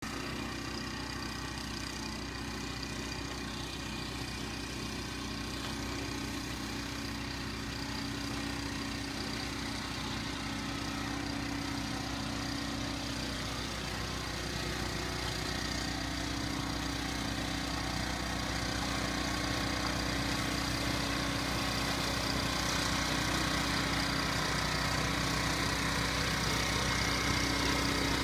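Snowblower engine running steadily, gradually getting louder.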